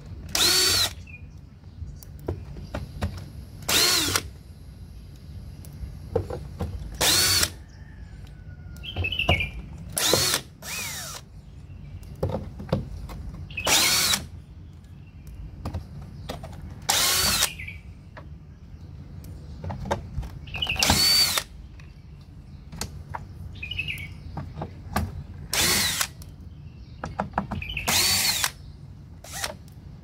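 Makita cordless drill-driver backing screws out of a washing machine door in about nine short bursts a few seconds apart, each under a second, with a brief whine as the motor spins up and down. Small clicks of handling fall between the bursts, over a steady low hum.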